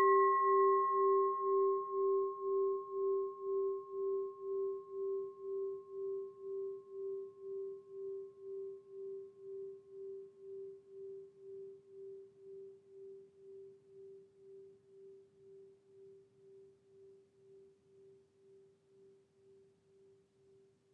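Singing bowl, struck once, ringing out and slowly fading. Its low tone wavers in a steady pulse about twice a second, while the higher overtones die away within the first few seconds.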